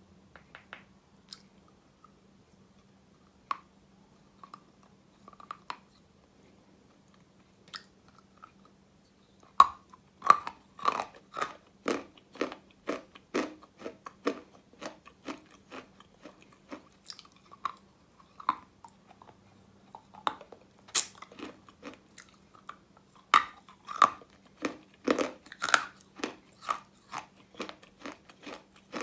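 Close-miked biting and chewing of a Russian chalk egg, a pressed egg-shaped lump of edible chalk: crisp, dry crunches. A few scattered crunches come at first, then from about ten seconds in a steady run of bites and chews at about two a second, over a faint steady hum.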